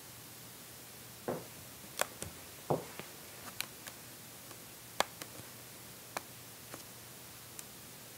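Handling noise as the camera is moved: scattered light clicks and taps, with two soft thumps between one and three seconds in, over a steady low hiss.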